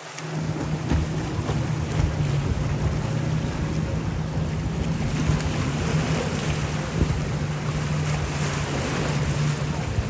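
Powerboat engines running at speed: a steady low drone, with rushing water and wind buffeting the microphone.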